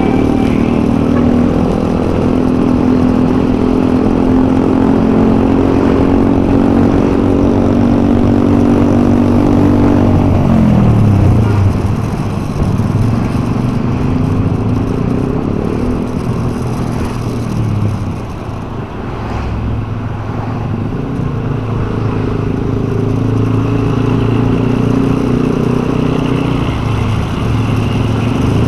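Motorcycle engine running while riding in traffic, over road and wind noise. About ten seconds in its pitch falls as the bike slows, then it holds steady and builds again near the end.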